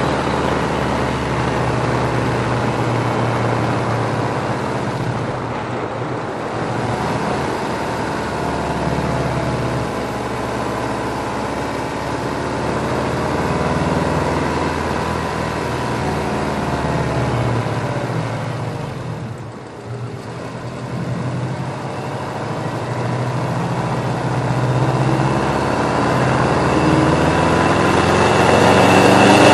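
Subaru Impreza WRX's turbocharged flat-four engine running steadily, mostly around idle. It dips briefly in level about two-thirds of the way through and grows louder near the end.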